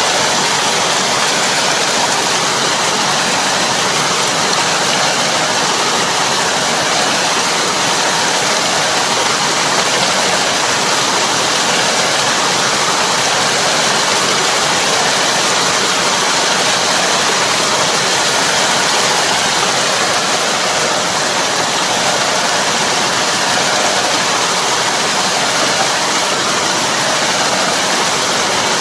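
Kobashi drive harrow puddling a flooded rice paddy: its rotating tines churn muddy water in a loud, steady rushing wash, with the tractor's engine running beneath.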